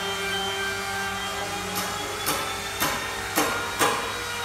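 Pieces of timber knocking together as they are handled and stacked, a run of about five sharp knocks roughly half a second apart starting about two seconds in, over a steady mechanical hum.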